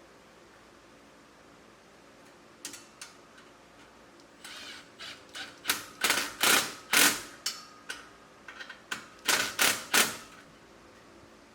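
Cordless impact wrench tightening exhaust clamp and flange nuts in a series of short bursts of rapid hammering. The bursts start light and scattered, then come in longer, louder runs as the nuts snug down.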